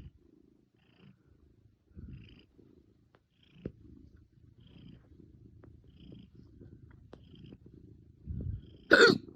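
A faint, steady low rumble, then one loud, sharp hiccup about nine seconds in, just after a short low sound.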